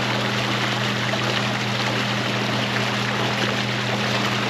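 Steady rush of water from a warm-water discharge outflow churning into a river, with a steady low hum underneath.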